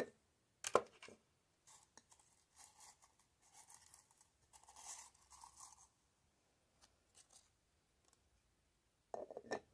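A wooden lid set down with a single knock, then faint dry rustling and crinkling as fingers rummage among whole dried bay leaves in a carved wooden jar and pick one out.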